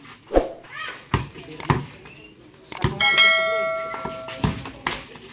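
A bright bell chime rings out about three seconds in and fades away over a second or two: the notification-bell sound effect of a subscribe-button animation. Before it, a few dull thuds of the basketball on packed dirt.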